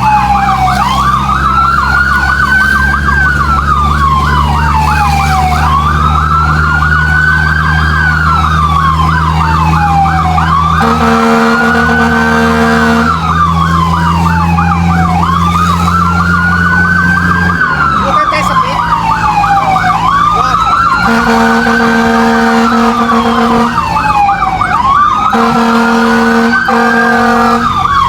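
Fire truck's electronic siren sounding while under way. It makes a slow rising-and-falling wail every few seconds, with a fast yelp running through it. Several short steady horn blasts come in the second half, and the truck's engine drones underneath.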